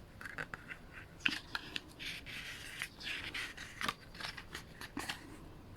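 Pages of an album photobook being turned and handled: a run of short paper swishes mixed with small sharp clicks.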